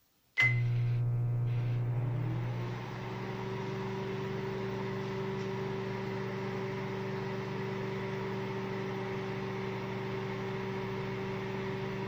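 Microwave oven keypad beeps once as it is started, then the oven runs with a steady electrical hum, a little quieter after about two and a half seconds, while heating food.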